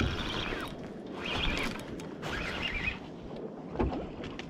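Spinning (fixed-spool) fishing reel being cranked, its gears whirring in three short spells.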